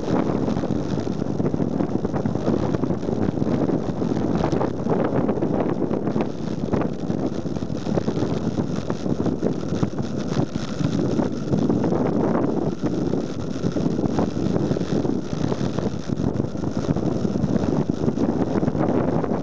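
Steady rush of wind buffeting the microphone of a camera mounted on a bicycle speeding downhill, with occasional brief knocks.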